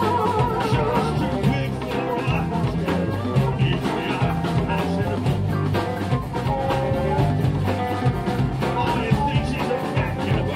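Live electric blues band playing: electric guitars over bass, drums and percussion, with a steady beat.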